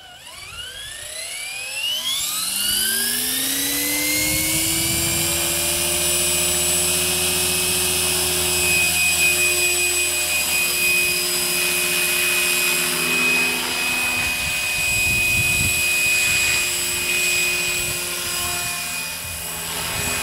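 GAUI Hurricane 425 RC helicopter spooling up: the rotor and drive whine rises steadily in pitch over the first three seconds or so. It then holds a steady whine as the helicopter flies.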